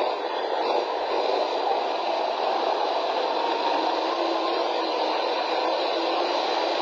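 T-72 tank's V12 diesel engine and tracks running steadily as it ploughs through deep snow, heard as an even, unbroken noise with little bass.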